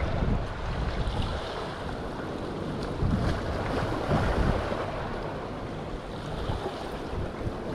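Surf washing onto the beach in strong wind, with wind rumbling on the microphone.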